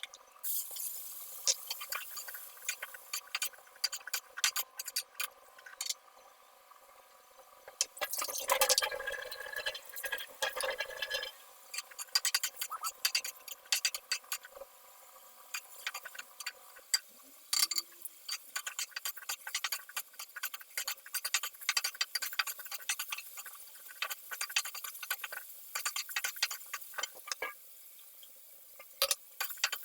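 Food sizzling and crackling in a frying pan, a dense irregular patter of pops. About eight seconds in there is a louder, fuller rush of sizzle that lasts a few seconds.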